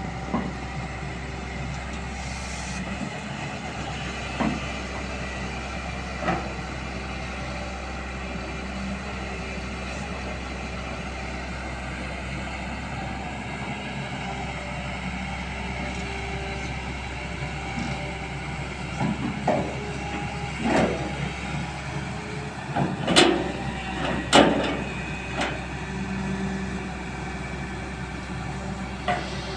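Hyundai R245LC-7 long-reach excavator's diesel engine running steadily while it digs, with a scatter of sharp clanks from the arm and bucket, most of them in a cluster about two-thirds of the way in.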